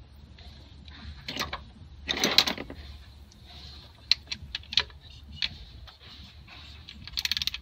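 Ratchet and wrench working the bolts on a plastic intake manifold: scattered metal clicks and clinks, a burst of rattling about two seconds in, and a quick run of ratchet clicks near the end.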